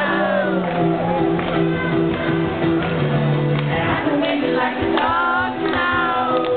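Live performance of a song: a singer over a steady, pulsing band accompaniment, in a large room.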